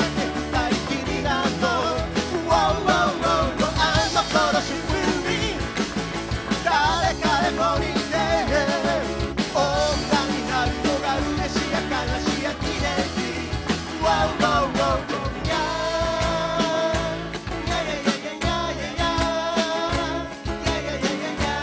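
A live acoustic band playing: acoustic guitars strummed under male voices singing a song together at the microphones.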